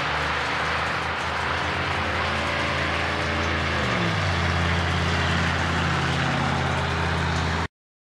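Road traffic on wet, slushy pavement: a steady hiss of tyres with the hum of vehicle engines. About four seconds in, an engine note drops in pitch and settles lower. The sound cuts off suddenly just before the end.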